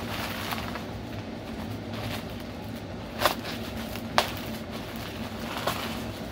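Plastic bubble wrap crinkling as it is cut with scissors and pulled away by hand, with two sharp clicks about three and four seconds in, over a steady low hum.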